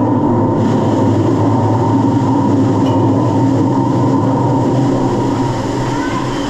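Steady mechanical rumble with a low hum from the dark ride's machinery as the ride boat travels through the mine, easing off slightly near the end.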